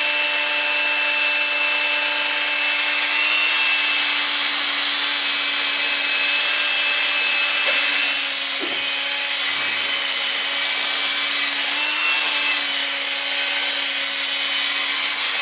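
Electric drill spinning a toilet brush against a carbon-crusted two-stroke moped cylinder head: a steady motor whine with the bristles scrubbing, the motor note dipping slightly about eight seconds in. The brushing is loosening carbon deposits soaked in WD-40.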